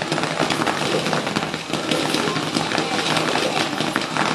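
Consumer ground fountain firework burning, a steady hissing spray of sparks thick with fast crackles.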